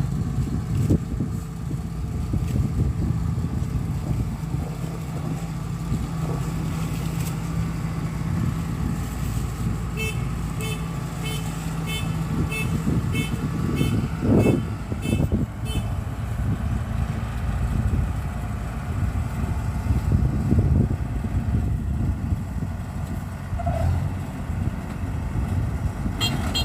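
Kubota DC93 combine harvester's diesel engine running steadily. From about ten seconds in, a high electronic beeper sounds for several seconds at about two beeps a second.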